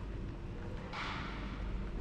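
Steady low room hum in a large indoor hall, with a short hiss about a second in that fades away over about half a second.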